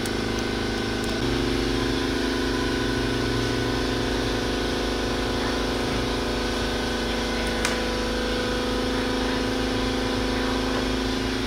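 Steady mechanical hum of a running motor, several even tones held throughout, which shift slightly about a second in.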